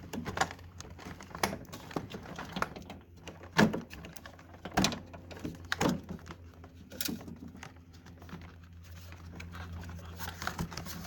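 Plastic retaining clips of a 1998 Jeep Cherokee's interior door panel being popped out: a run of irregular sharp clicks and knocks, with a few louder snaps around the middle.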